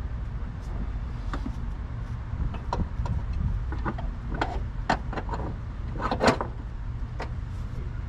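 Scattered light clicks, taps and scrapes as an accelerator cable and its plastic fittings are worked and pushed through the firewall, with the loudest cluster of knocks about six seconds in, over a steady low background rumble.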